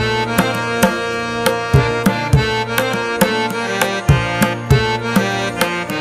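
Background music: a steady drum rhythm over sustained melodic notes.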